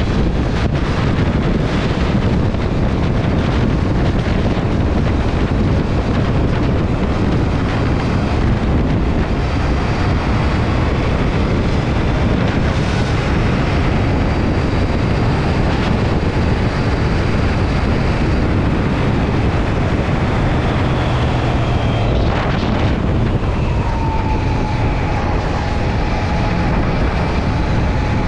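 Motorcycle riding at speed: steady wind rush on the microphone over engine and road noise.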